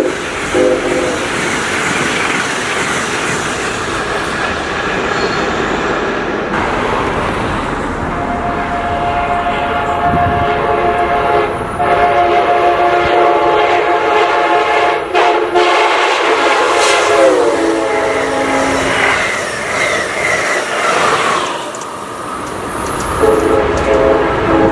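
Amtrak locomotive's five-chime air horn sounding as the train passes: a short blast at the start, a long blast from about a third of the way in whose chord drops in pitch as the train goes by, and another blast near the end. Under it runs the steady rush and clatter of the train on the rails.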